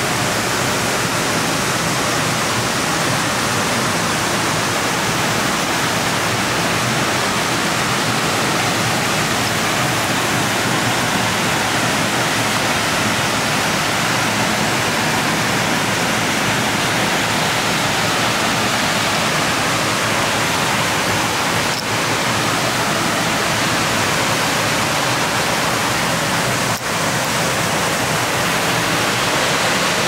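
Loud waterfall on a rocky canyon creek: a steady, even rush of falling white water.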